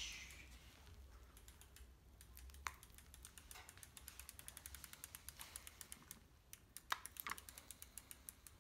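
Child's bicycle rear-hub freewheel ticking as the bike is wheeled slowly along: a long, faint run of rapid, even clicks, with a few sharper single clicks.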